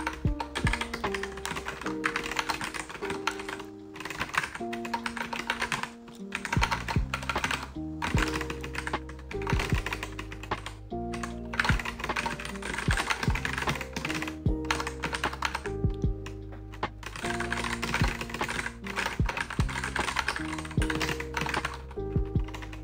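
Typing on a computer keyboard in rapid runs of keystrokes with short pauses, over lofi background music of held chords and a bass line.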